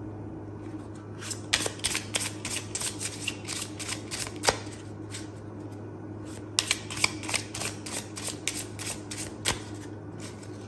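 A deck of playing cards being shuffled by hand in two spells of quick, crisp card clicks, with a short pause between them, over a low steady hum.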